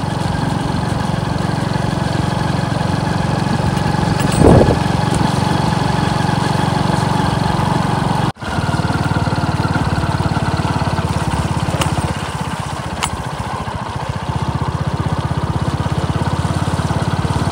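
Small motorcycle engine running steadily under way, heard from the rider's seat, with a brief louder burst about four and a half seconds in. The sound drops out for an instant a little past halfway.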